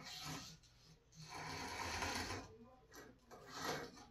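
Grinding wheel turned by hand against the blackened bevel of a plane iron: a few scratchy scrapes of abrasive on steel, the longest in the middle. It marks where the wheel contacts the bevel, to check the grinding angle.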